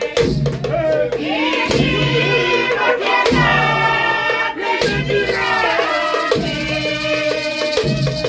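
Voices singing together over a steady drum beat, with a low phrase repeating about every second and a half.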